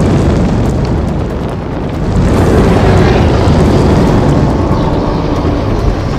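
Fire sound effect: a loud, deep rushing of flames that starts suddenly and swells about two seconds in, as a creature breathes fire across a burning forest.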